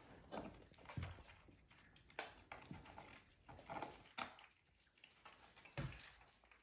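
Faint scattered taps and soft thumps of young kittens wrestling and scrambling on a hard floor, with a couple of heavier thumps as they tumble.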